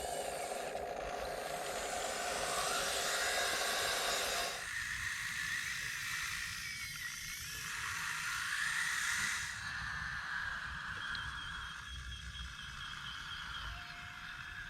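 Small electric motors and hydraulic pump of a scale RC construction machine whirring, with a lower whine that cuts off about four and a half seconds in and two stretches of hiss.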